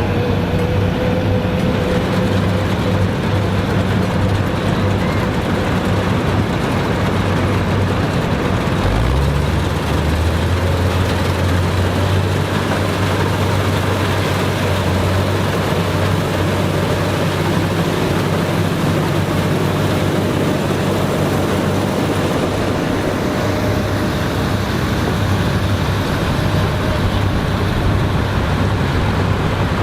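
Farm machinery engine running steadily under load, with a dense mechanical clatter over it. The engine note shifts to a new pitch about nine seconds in.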